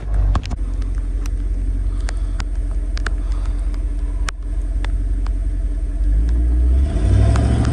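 Truck engine running under load as the truck tries to drive out of being stuck in mud. The low rumble swells louder about six seconds in as it is given more throttle, and a few sharp clicks come through on top.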